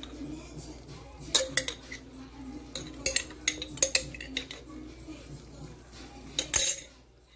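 A spoon clinking and scraping against a glass jar as jerk seasoning paste is scooped out into the pan: a series of sharp clicks over the first few seconds, then a short louder scrape near the end.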